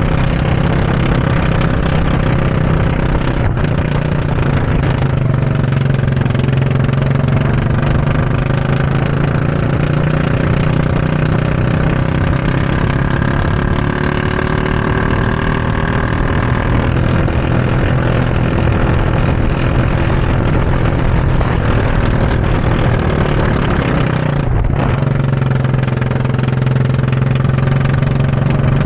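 Go-kart engine running hard on a lap, heard from the driver's seat, its pitch rising and falling with the revs.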